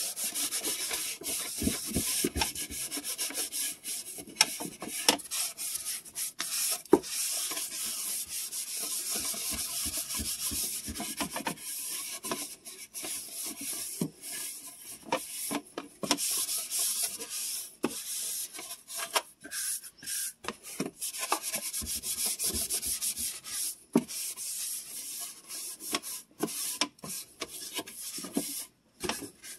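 Rubbing and scraping as a refrigerator door shelf is wiped out and its aluminium foil liner handled, a steady hiss broken by many small clicks and knocks.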